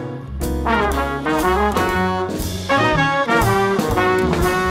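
Outro music: jazzy instrumental with brass horns playing short melodic phrases over a bass line.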